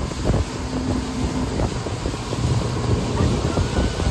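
Mercury outboard motor running at speed under the load of towing a tube, a steady low hum, with wind buffeting the microphone and the wake rushing behind the boat.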